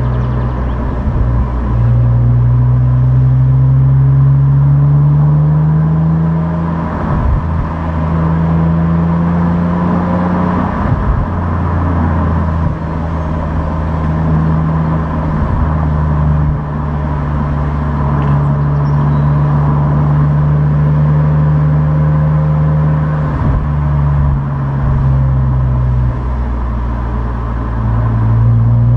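Opel Insignia OPC's 2.8-litre turbocharged V6 on its stock exhaust, driving under load. The engine note climbs slowly and drops back several times as it shifts gears.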